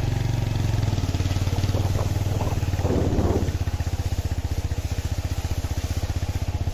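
TVS Apache motorcycle's single-cylinder engine running at a steady cruising pace, its exhaust pulses beating evenly, heard from on the moving bike.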